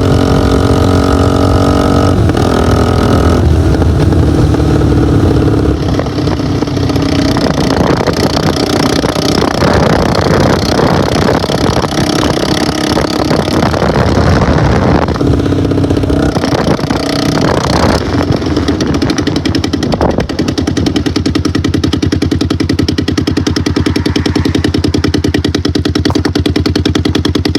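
Motorcycle engine running under way, its note stepping in pitch a couple of times, then settling into a steady, even beat for the last third.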